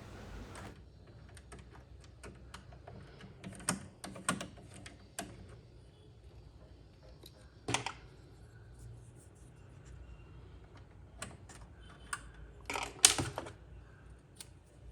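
Scattered light clicks and taps of hands and tools working on the PlayStation 4's internal parts and aluminium frame during disassembly, with louder clusters about 4, 8 and 13 seconds in.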